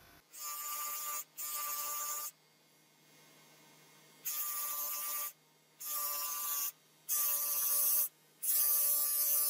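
Electric grinder's abrasive wheel grinding a metal watch case in six short bursts of about a second each, as the case is pressed to the wheel and lifted off. Between bursts the grinder's motor keeps running with a low hum.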